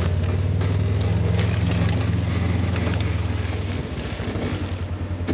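A vehicle engine running steadily at low speed over rough ground, with scattered knocks and rattles of the ride; the engine note eases about four seconds in.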